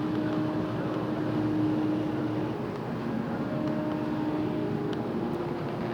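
Steady background hum and hiss with a few faint steady tones: the room tone of a large museum hall.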